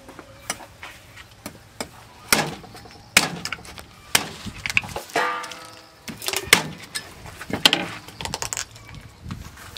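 Hands working a raw split pig carcass on a plastic-covered wooden table: a string of irregular cracks, snaps and crinkles as the flesh and ribcage are pulled apart and the plastic sheet is pressed and moved. About five seconds in there is a short pitched call or voice.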